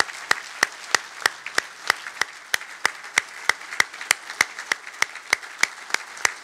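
A banquet audience applauding. One clapper close to the microphone stands out with sharp, even claps about three a second over the spread-out clapping of the room.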